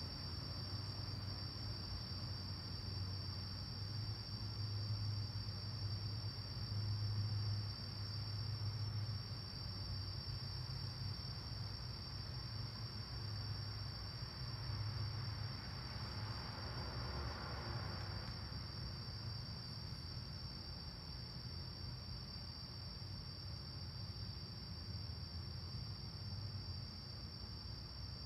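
Crickets singing in a continuous high trill over a low, uneven rumble. About two-thirds of the way through, a distant car passes as a faint hiss that swells and fades.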